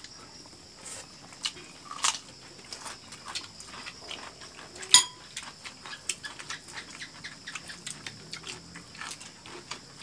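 People eating with their hands: chewing and smacking, with many small clicks of food and crockery. About five seconds in comes one sharp ringing clink of a dish.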